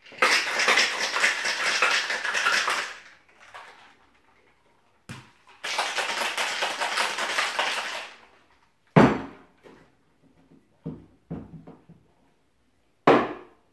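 Ice rattling hard inside a Boston shaker (stainless tin over a mixing glass) as the cocktail is shaken, in two bouts of about three and two and a half seconds. Then a sharp knock and a few light clinks as the shaker is opened and the glass is pulled from the tin, with another sharp knock near the end.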